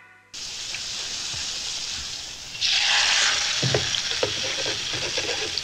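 Meat frying in plenty of oil in a pan, a steady sizzle that grows louder about two and a half seconds in.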